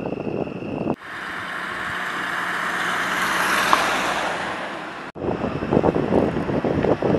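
Vehicle tyres on a wet road: a steady hiss swells for about three seconds as the car approaches, then eases off. It starts and stops abruptly, about one and five seconds in.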